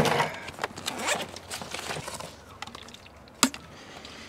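Backpack dropped onto a truck bed's plastic liner, then its zipper pulled open in quick rasping strokes with rustling of the bag. A single sharp click about three and a half seconds in.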